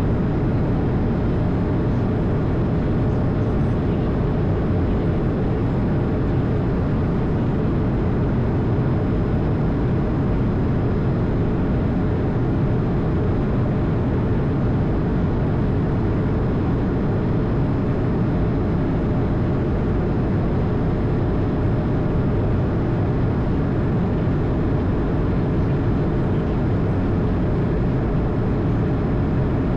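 Steady, unbroken rush of airflow and engine noise heard inside the cockpit of an Airbus A220 in flight, with a faint steady hum underneath.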